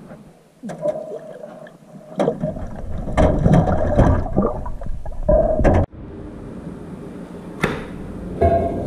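Gurgling water around a submerged camera, with many sharp knocks and bumps. About six seconds in it cuts off abruptly and gives way to a steadier rushing noise.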